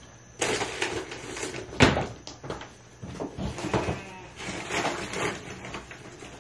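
Rustling and clattering as alfalfa pellets are scooped from a feed bin into a plastic bowl, with a sharp knock about two seconds in.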